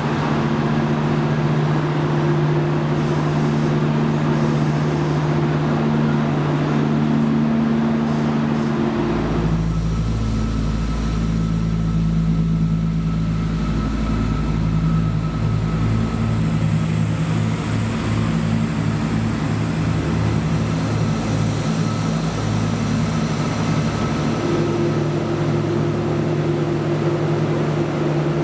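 Diesel multiple unit engines at a station platform: first a steady idling hum, then about nine seconds in a deeper, heavier engine rumble with a regular pulsing throb as a Renfe diesel train works along the platform, settling back to a steadier hum near the end.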